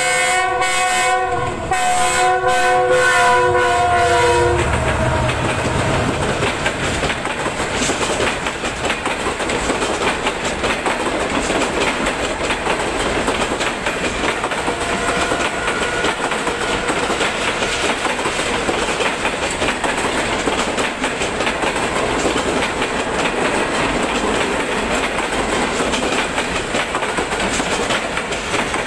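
A GEU-40 diesel locomotive sounds its multi-tone horn as it passes, the chord dipping in pitch, over the low rumble of its engine; the horn cuts off about four seconds in. Then its passenger coaches roll by with a steady clatter of wheels over the rail joints.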